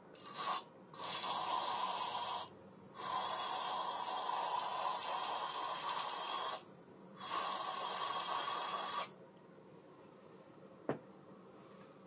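Hissing spray in four bursts, the longest about three and a half seconds, followed by a single light clink near the end.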